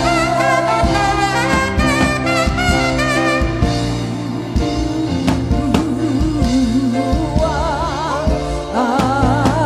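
Live gospel singing with vibrato over a steady band accompaniment, loud and continuous.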